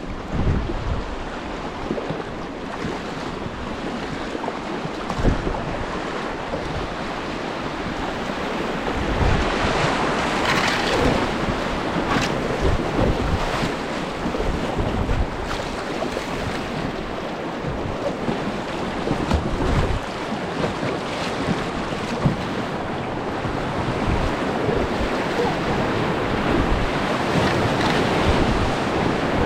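Whitewater of a river rapid rushing steadily, with wind buffeting the microphone and occasional low thumps on it.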